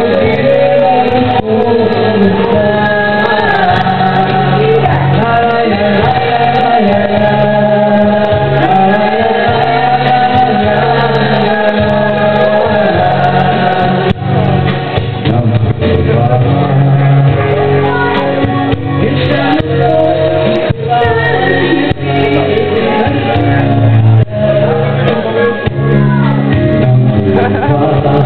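Live duo music: a man and a woman singing a Portuguese-language song over instrumental accompaniment with a steady bass line.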